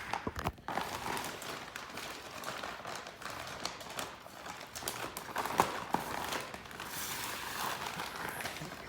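Plastic packaging being cut open and pulled apart by hand, with irregular crinkling and rustling, scattered small clicks and a sharper tap about five and a half seconds in.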